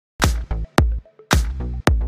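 Electronic dance music with heavy, punchy beats and deep bass, starting a moment in after a brief silence.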